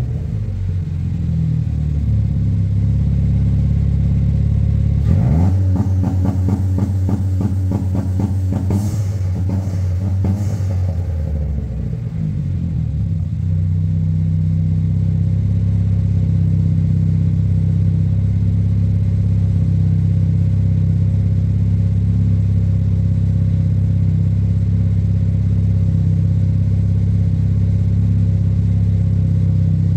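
Ford Fiesta ST engine running after a winter cold start, heard from the exhaust. About five seconds in it is revved quickly and held at raised revs. Around twelve seconds it drops back to a steady idle.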